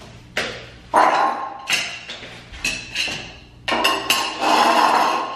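Plastic shampoo and conditioner bottles knocking and clattering against a tiled shower floor as they are handled: a string of sharp knocks, each with a short ringing, echoing in the tiled stall.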